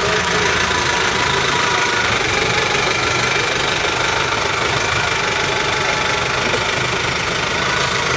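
2008 New Holland T5050 tractor's diesel engine running steadily as the tractor creeps along with its front loader raised.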